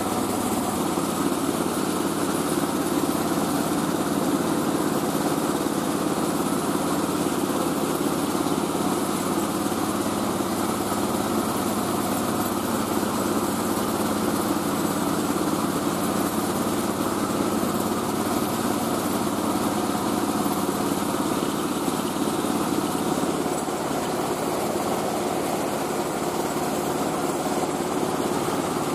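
Mobile rice-milling machine running steadily, its engine and mill going without letup as paddy is milled.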